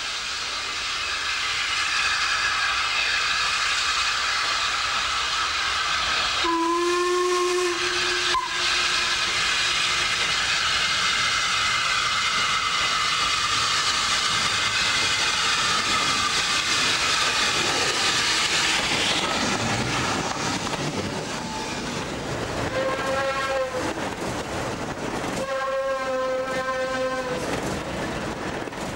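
Steam locomotive hissing steadily as steam escapes, with one long whistle blast about seven seconds in and a short toot just after. Two higher-pitched whistle blasts follow near the end as the hiss dies down.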